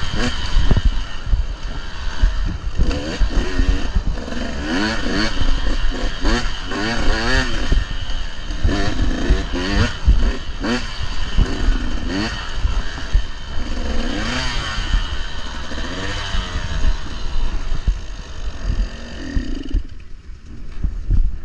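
An 85cc two-stroke dirt bike engine revving up and down over and over, with knocks and clatter on top. Near the end the engine note falls away for a moment.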